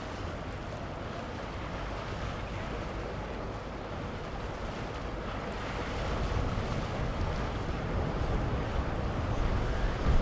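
Sea Ray Sundancer motor cruiser running past under power: a steady low engine rumble and the wash of its hull through the water, with wind buffeting the microphone. It grows louder about six seconds in.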